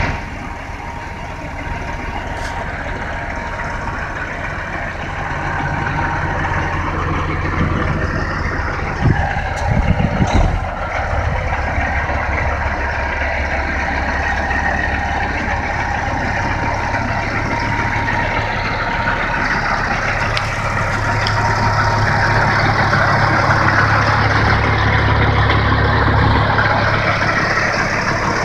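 Semi-truck's diesel engine idling steadily, with a few loud knocks about nine to ten seconds in.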